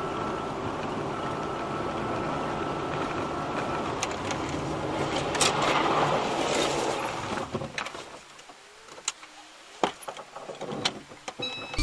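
Dashcam audio from inside a car moving fast on a wet road: steady road and engine noise. About five and a half seconds in, a sharp click and a louder rough noise last about two seconds as the car leaves the road and slides up to a concrete wall. Then the noise drops away, leaving a few sharp clicks.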